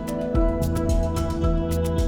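Background music: a soft new-age style instrumental with held notes over a steady beat.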